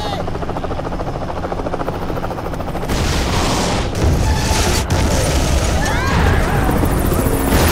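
Film action sound: a helicopter's rapid rotor chop, then from about three seconds in a series of explosions with a sharp crack among them. A shout comes near the end.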